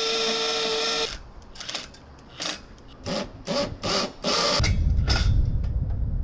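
Power drill setting Tapcon masonry screws into brick: it runs steadily with a whine for about a second, then gives about seven short trigger bursts. A low rumble comes in over the last part.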